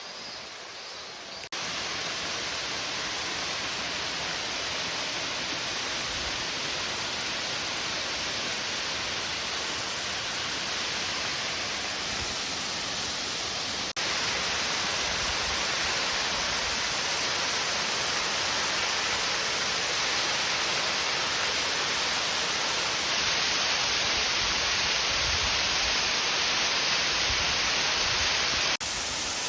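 A waterfall's steady rushing roar of falling water, with sudden jumps in level where the shots change about 1.5 seconds in, about halfway through, and near the end.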